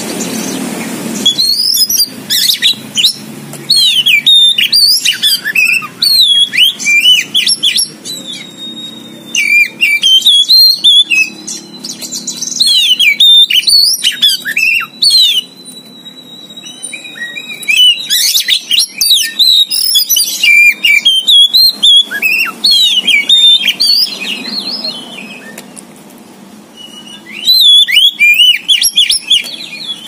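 Caged Oriental magpie-robin (kacer poci) singing loudly and almost without pause in quick, varied phrases of whistles and sharp gliding notes. The song starts about a second and a half in and has a few brief lulls. A thin, steady high tone runs underneath for several seconds in the middle.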